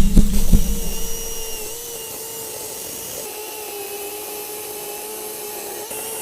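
Battery-powered electric chainsaw running with a steady whine. A few heavy knocks come in the first second and a half, then it runs on evenly.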